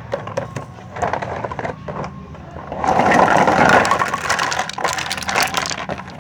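Crinkling and clicking of plastic packaging and toy parts being handled, loudest from about three to four seconds in.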